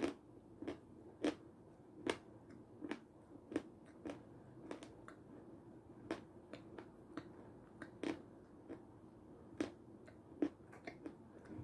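Close-up chewing of homemade Raffaello-style candies: soft, wet mouth clicks and smacks at an uneven pace, about one or two a second.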